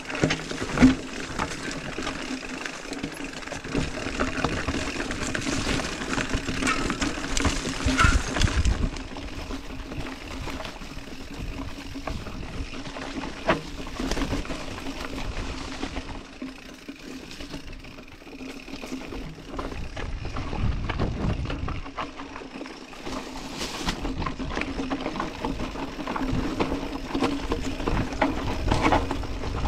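A full-suspension mountain bike ridden down a rough, overgrown dirt singletrack: tyres crunching over dirt and stones, the frame and chain rattling, and leaves and branches brushing past. Knocks and rattles come thick and fast, loudest about eight seconds in and again near the end.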